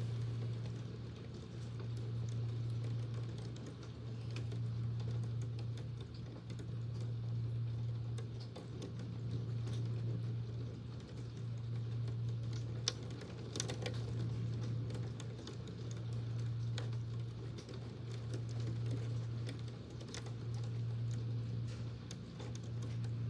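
Electric fan running with a steady low hum that swells and fades about every three seconds, while rain taps in scattered, irregular ticks.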